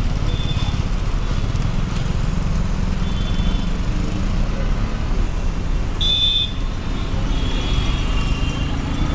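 City bus engine running with a steady low rumble amid street traffic. Brief high-pitched tones cut through several times, the loudest about six seconds in.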